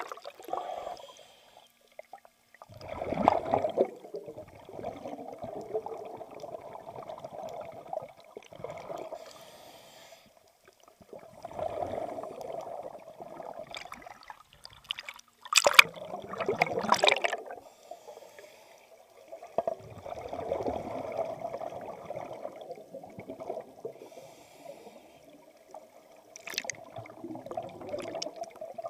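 A scuba diver breathing through a regulator underwater: several slow breath cycles, each exhalation followed by a rush of bubbles, heard through the camera housing.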